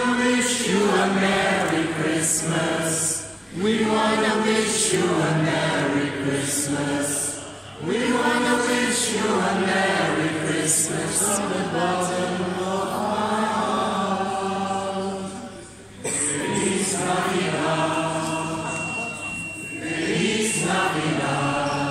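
Mixed amateur choir of carol singers, men and women together, singing a Christmas carol unaccompanied. The singing comes in phrases with brief breaks between lines, about three times.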